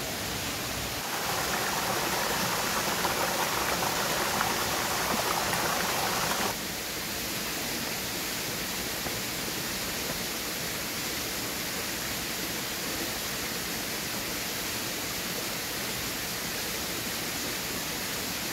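Steady rush of flowing stream water, an even hiss. It is louder and fuller for a few seconds after about a second in, then drops back suddenly to a lower steady rush.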